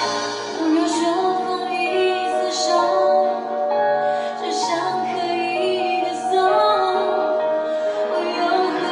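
A woman singing a Mandarin pop song live into a microphone over instrumental accompaniment, with long held notes.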